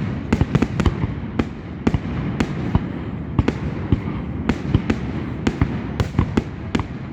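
Aerial fireworks exploding in a rapid, irregular string of sharp bangs and crackles, several a second, over a continuous low rumble of booms.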